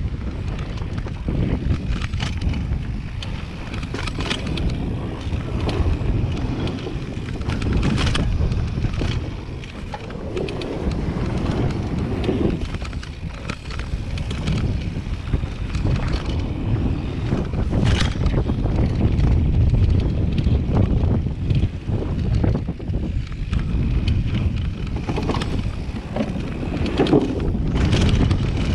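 Wind rushing over an action camera's microphone during a fast downhill mountain-bike descent, with tyres rolling over a dirt trail and the bike rattling. Several sharp knocks from hits on the trail stand out, the clearest about 8 and 18 seconds in and near the end.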